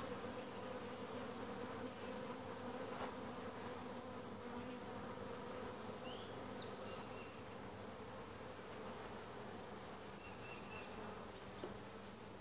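Honey bees buzzing over an open hive while its frames are worked: a steady, even drone.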